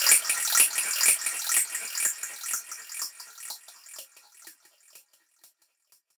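Closing bars of a techno track: the bass has dropped out, leaving a quick, even pattern of hissy hi-hats and percussion that fades away over about five seconds.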